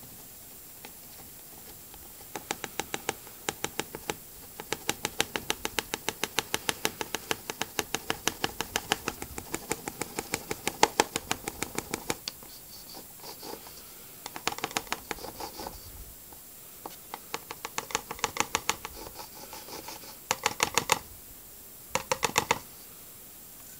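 Quick, even tapping, about six taps a second, as washing powder is shaken out of a paper cup into a washing machine's detergent drawer. A long run of taps is followed by several shorter runs with pauses in between.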